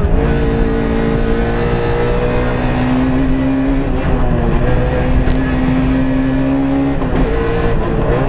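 Peugeot 106 A5 rally car's four-cylinder petrol engine heard from inside the cabin, pulling hard at speed. Its pitch creeps up and dips briefly about four and seven seconds in.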